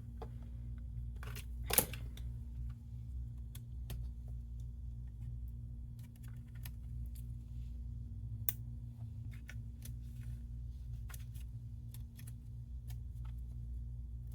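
Scattered small clicks and taps of ribbon-cable connectors and parts being unplugged and handled inside an opened Dell G3 laptop, with one sharper click about two seconds in, over a steady low hum.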